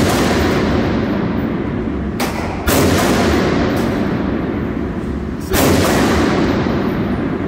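Gunshots echoing in an indoor shooting range: sharp reports about two and a half seconds in and again about five and a half seconds in, each trailing off in a long echo.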